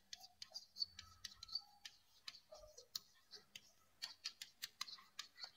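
Chalk writing on a blackboard: faint, irregular taps and clicks of the chalk against the board, with a few brief faint squeaks.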